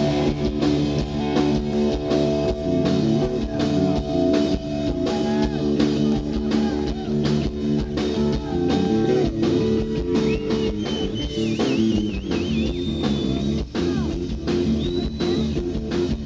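Rock band playing live: electric guitar and bass over a drum kit, with no vocals. In the second half a high lead guitar line bends and wavers with vibrato.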